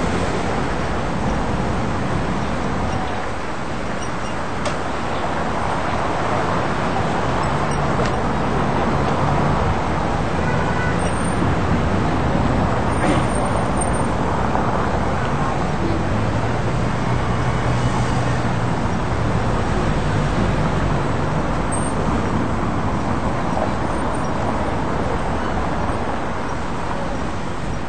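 City street traffic: cars and vans passing through an intersection, a steady wash of engine and tyre noise, with a deeper engine hum swelling near the middle.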